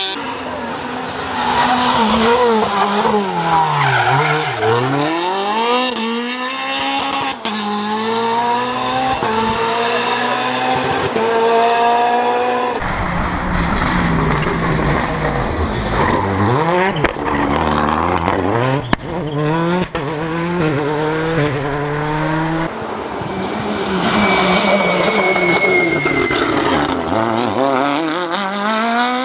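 Rally car engines at high revs through a series of passes, the pitch climbing through the gears and dropping steeply under braking. The sound jumps abruptly from one car to the next a few times.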